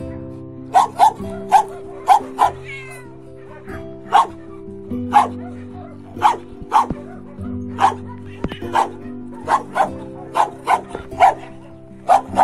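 Dogs barking again and again in short, sharp single barks, about one to two a second at times, over background music with long held notes.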